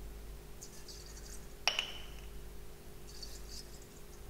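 Sugar being scooped from a glass jar with a small spoon and tipped into a stainless steel mixing bowl: faint scraping and rustling, with one sharp clink that rings briefly about one and a half seconds in.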